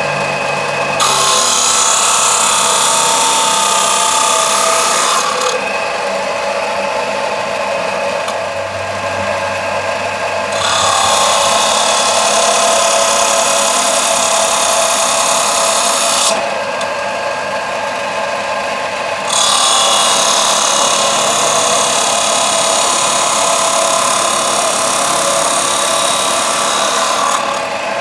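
Electric abrasive chop saw running with a steady whine, its cut-off wheel grinding through metal pipe three times, each cut a loud hissing screech lasting several seconds.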